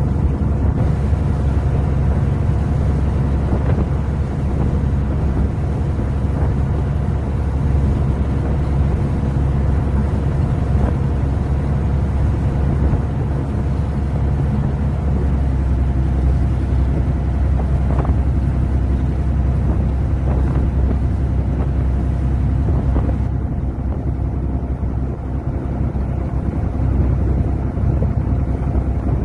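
Fishing boat's engine running steadily, a constant low drone with even tones and no change in pace.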